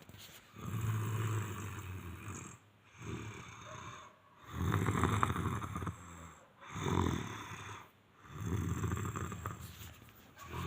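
A sleeping young man snoring: three long snores about four seconds apart, each followed by a shorter, quieter breath.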